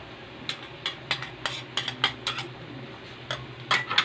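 Metal spoon and ladle clicking and tapping against a metal wok in a quick, irregular string as black beans are spooned in and stirred, over a faint steady hum.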